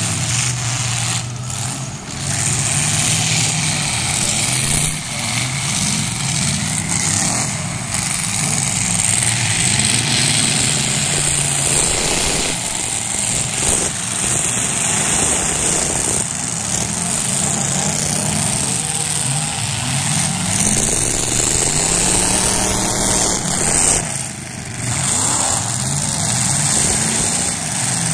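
Engines of several full-size demolition derby cars revving up and down again and again as they ram each other, with a few sharp crashes of car on car.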